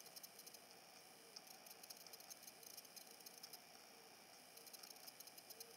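Near silence, with faint scratchy rustling from a cloth being rubbed over a cured resin surface, coming and going with the wiping strokes.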